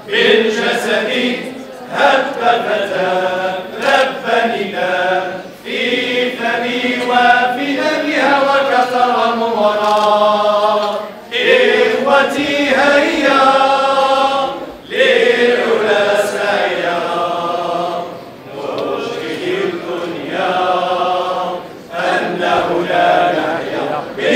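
Singing: a slow vocal melody with wavering, ornamented pitch, sung in phrases a few seconds long with short breaks between.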